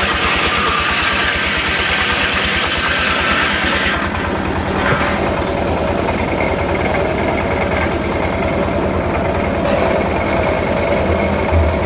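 Engine driving a circular sawmill, running steadily with an even low pulse. A brighter hissing noise over it stops about four seconds in, leaving the engine running on.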